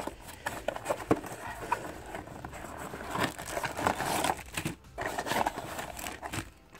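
A toy box being opened and its packaging handled: crinkling and rustling with scattered small clicks and knocks.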